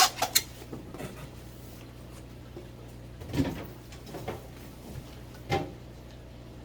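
Handling noises as a fish shipping box is opened and its contents moved: a quick cluster of sharp clicks and scrapes at the start, then three separate knocks with some rustling about three and a half, four and a half and five and a half seconds in, over a steady low hum.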